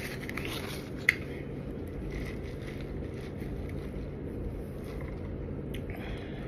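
Steady low background hum of room noise, with one sharp click about a second in and a few faint rustles.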